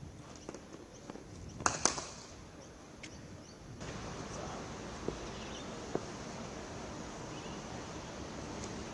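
Sharp knocks of cricket balls struck by bats in the practice nets: two loud ones close together about two seconds in, then a few fainter ones, over steady background noise.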